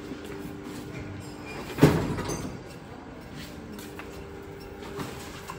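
Steady low hum of a lift, with one sharp, loud knock about two seconds in as things are moved through the lift doorway.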